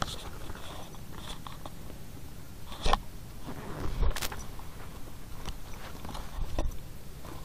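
Hand handling the camera at the water's edge: a few scraping knocks and bumps on the microphone, the loudest about three and four seconds in, over a steady low outdoor hiss.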